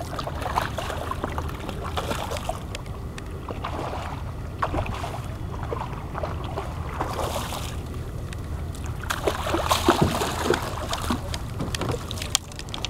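Water lapping and splashing against the side of a fishing kayak, with scattered clicks and knocks, over a steady low rumble of wind on the microphone.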